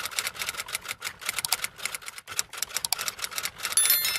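Typewriter keystroke sound effect, a rapid run of sharp key clicks. Near the end a short bright bell-like chime rings.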